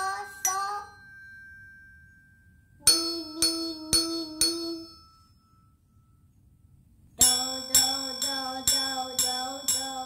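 Tuned do-mi-sol desk bells struck one after another, each strike ringing on: a short run of about four strikes about three seconds in, then a longer, steady run of strikes near the end. A small child's voice sings along with the strikes.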